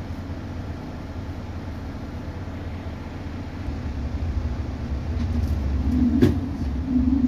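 A train approaching and passing a level crossing, heard from inside a waiting city bus with its engine idling: a low rumble that grows louder from about halfway through, with a sharp clack about six seconds in.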